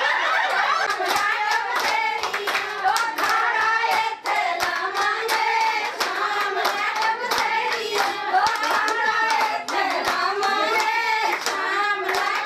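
A group of women singing together, with steady rhythmic hand clapping throughout.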